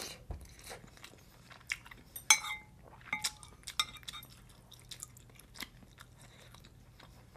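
Close-miked chewing and mouth sounds of someone eating kimchi stew with rice. A metal spoon clinks against the ceramic pot several times, the loudest about two seconds in.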